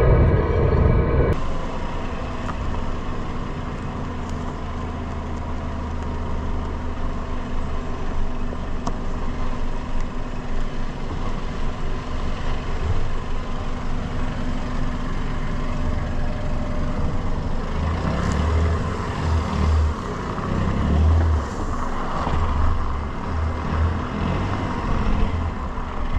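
Dacia Duster SUV driving slowly along a dirt trail, heard close to the front wheel: tyres rolling over dirt and stones under a steady engine and road rumble. Irregular low thumps come in during the last several seconds.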